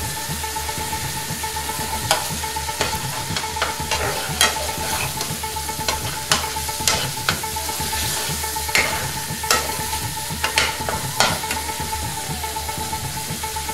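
Thick curry sauce simmering and sizzling in a frying pan on a gas burner, with about a dozen sharp, irregular pops and clicks. A faint steady hum runs underneath.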